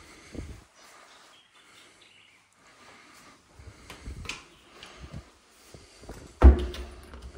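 An interior door or cupboard door shutting with one sharp thump about six and a half seconds in, after a run of small knocks and clicks.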